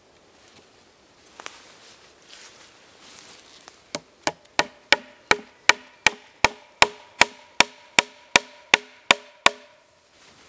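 Wooden stake being knocked down into a hole bored in a log: about sixteen evenly spaced sharp knocks, almost three a second, starting about four seconds in, each with a short hollow wooden ring.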